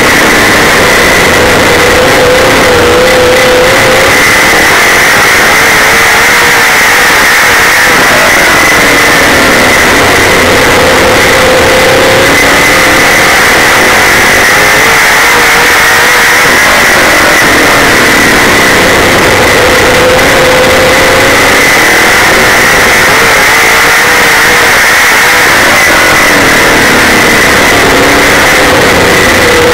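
Super late model dirt race car's V8 engine at racing speed, heard loud from inside the car. Its note climbs under full throttle down each straight and drops as the driver lifts into each turn, a cycle roughly every eight or nine seconds.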